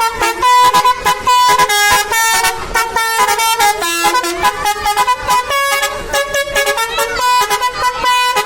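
Telolet bus horn, a multi-tone air horn playing a quick, loud tune: a continuous run of short notes that change pitch several times a second.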